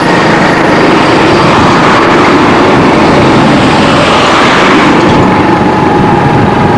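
Loud, steady vehicle engine and road noise with no break.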